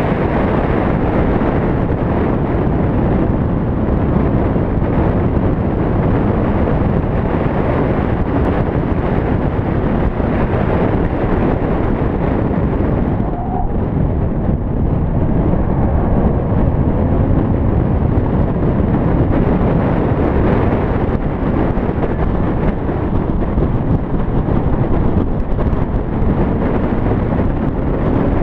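Porsche Boxster Spyder driven at speed on a race circuit, heard through an exterior camera's microphone: heavy, continuous wind buffeting over the car's engine and tyre noise, the hiss easing briefly about halfway through.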